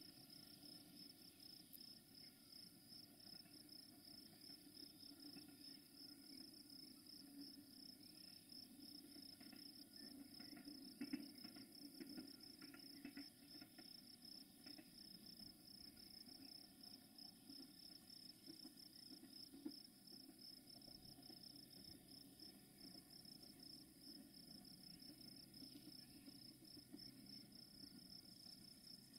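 Faint, steady, high-pitched chirring of crickets, one unbroken trill, over a faint low hum, with a few faint clicks about a third of the way in and again past the middle.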